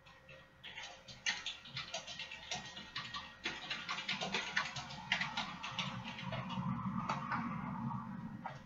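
Rapid, irregular clicking of typing on a computer keyboard, with a low murmur underneath through the second half.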